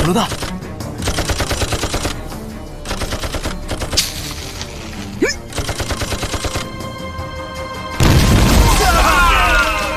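Several bursts of rapid gunfire, then a loud explosion about eight seconds in, over dramatic background music.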